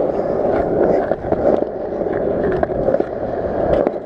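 Skateboard wheels rolling over a concrete skatepark surface: a steady rolling rumble with frequent short clicks scattered through it.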